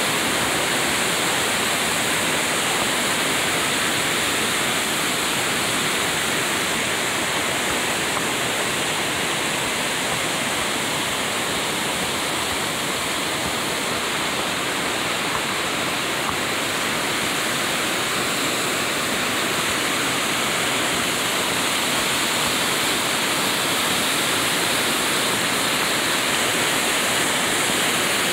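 Mountain stream rushing over rocks and small cascades: a steady wash of water with no let-up.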